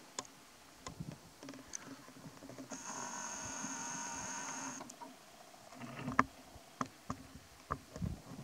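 Camcorder's zoom-lens motor running as the lens zooms in: a steady, high whine for about two seconds, starting near three seconds in. Faint scattered clicks are heard around it.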